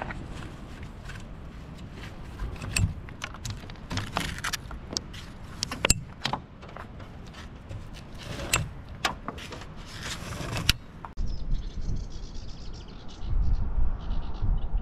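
Blue polypropylene rope being untied from a canoe strapped to car roof bars: the rope rubs and slides over the bars and foam pads in irregular rustles, with several sharp clicks. About 11 seconds in the sound changes to wind rumbling on the microphone outdoors, with faint high chirping.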